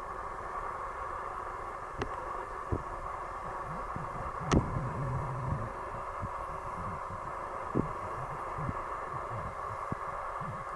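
Steady outdoor background hiss with low irregular rumbles, like wind or handling on the microphone, and a few sharp clicks, the loudest about four and a half seconds in.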